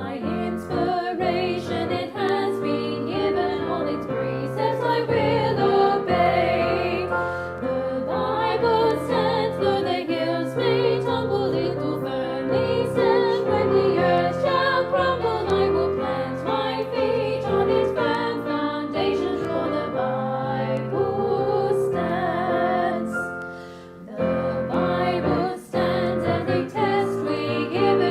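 A choir singing a hymn with instrumental accompaniment, the music dipping briefly about three-quarters of the way through before resuming.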